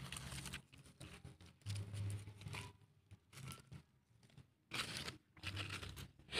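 Dry fallen teak leaves crunching and rustling in irregular bursts, with short quiet gaps between them.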